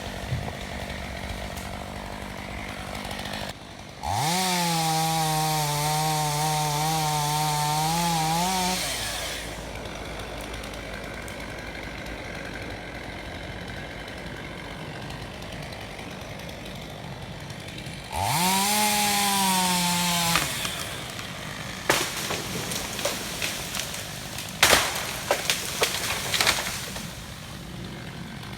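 Stihl 661 two-stroke chainsaw idling, opened to full throttle for about five seconds, dropping back to idle, then revved again for about two seconds. Several sharp knocks and cracks follow near the end.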